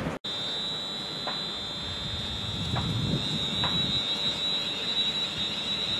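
Class 350 Desiro electric multiple unit at the platform, giving a steady high-pitched whine over a low rumble, with a few faint clicks.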